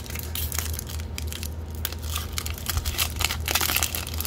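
Foil wrapper of a 2024 Score football trading-card pack crinkling and tearing as it is pulled open by hand, in many quick crackles.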